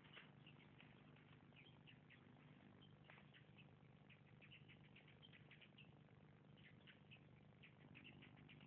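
Near silence with faint, quick, high-pitched animal chirps scattered through it, over a low steady hum.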